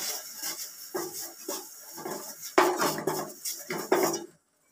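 Wooden spatula scraping and stirring around a nonstick kadai with a little water in it, in repeated strokes about two a second, then cutting off suddenly near the end.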